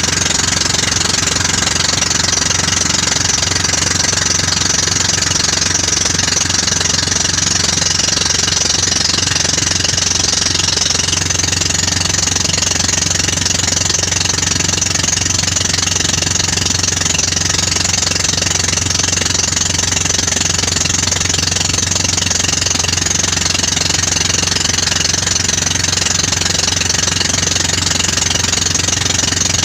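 Engine of a motorised outrigger boat (bangka) running steadily while under way, an even, unchanging note.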